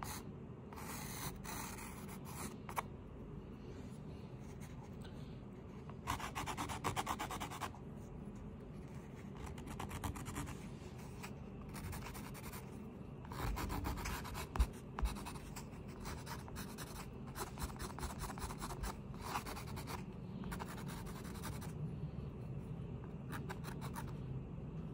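A pen or pencil-like drawing tool scratching across paper in runs of quick strokes with short pauses between them, over a low steady hum. A couple of light knocks come about halfway through.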